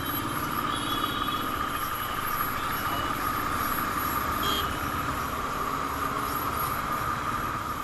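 A motorcycle riding steadily along a busy road: an even drone of engine, wind and road noise, with traffic around it and a couple of short high beeps, about a second in and again about four and a half seconds in.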